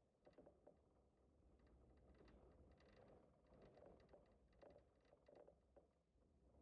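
Near silence: a faint low rumble with a few scattered faint ticks.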